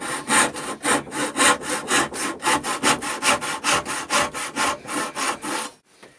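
Handsaw cutting down the side of a lap-joint recess in a wooden wagon rail, in quick, even strokes of about four to five a second. The sawing stops near the end as the cut reaches the line.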